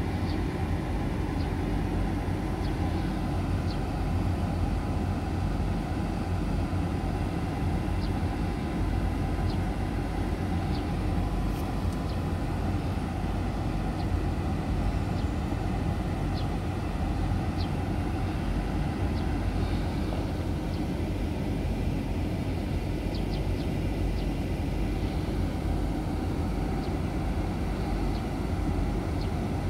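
Steady low outdoor rumble, with a few faint short high ticks scattered through it.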